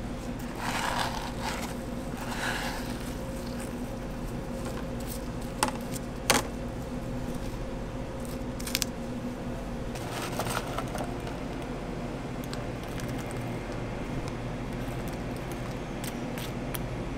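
Light scraping and patter of fruit pieces being slid off a plastic cutting board and spooned onto a crepe, over a steady machine hum. A few sharp clicks come a little before halfway, the loudest sounds.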